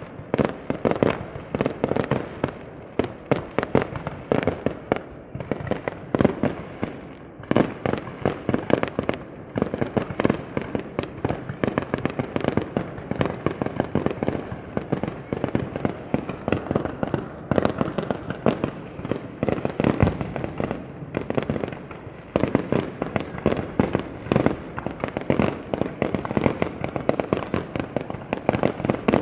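Fireworks display going off: a dense, almost unbroken run of bangs and booms, many each second.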